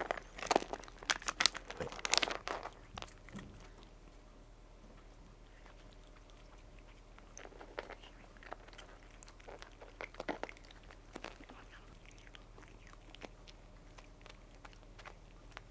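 Cats crunching dry kibble off the floor. A denser, louder run of clicks and rustling fills the first three seconds, then the crunches go sparse and quiet.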